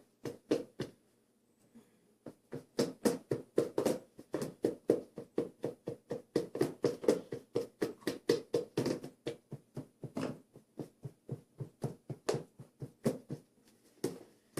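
Slime being poked full of holes, a quick series of short wet pokes at about three to four a second, with a pause near the start.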